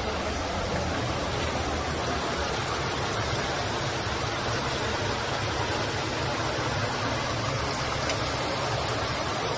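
River water rushing steadily, an even wash of flowing-water noise.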